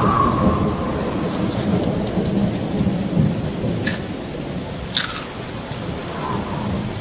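Thunderstorm sound effect: a steady hiss of rain under a low rolling rumble of thunder. Two brief sharp clicks come about four and five seconds in.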